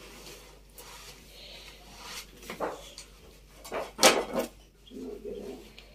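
Cloth rustling with a few knocks and clinks as rotis are unwrapped from their cloth and a steel plate is handled, the sharpest clink about four seconds in.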